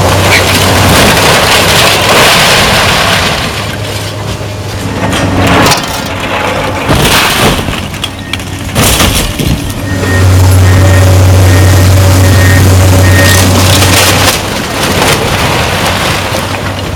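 Brick buildings being torn down by a Komatsu hydraulic excavator: falling masonry, roof tiles and timbers crash and rumble down in repeated impacts. The excavator's diesel engine runs underneath, as a steady low hum that is strongest a little past the middle.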